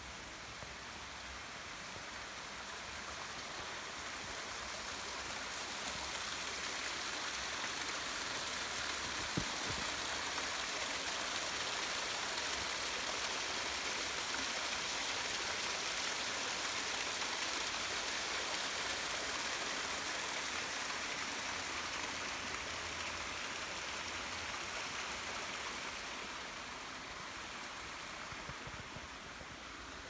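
Small creek waterfall splashing and rushing over mossy rocks, a steady watery hiss that swells over the first several seconds, is loudest in the middle and fades in the last few seconds. One brief click about nine seconds in.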